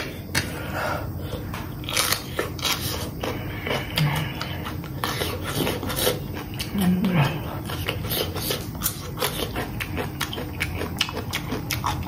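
Close-up eating sounds: a person chewing spicy noodles, with many sharp clicks from a metal fork on the plate. There are two brief low hums from the eater, about four and seven seconds in.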